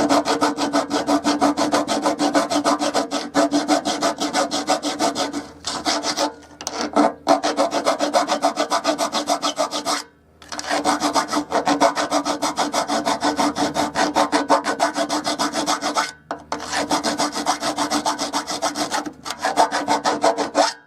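A tool grinding metal off the mower's height-adjustment slot, so the roller can sit higher and the blades cut lower. It makes a steady rasping with a low hum under it, broken by short pauses a few times: at about 6, 7, 10, 16 and 19 seconds.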